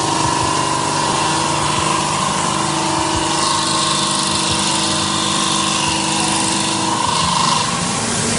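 Poseidon Viking X5 CNC bridge saw cutting a stone slab, its blade running wet under coolant water. A loud, steady grinding hiss with a steady whine over a lower hum.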